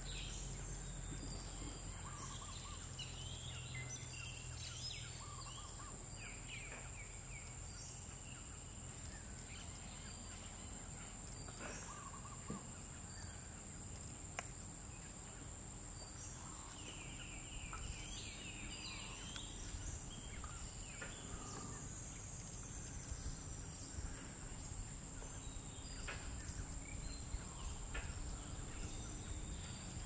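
Steady, high-pitched insect drone with scattered short bird chirps and calls, including a quick run of repeated notes a little past halfway.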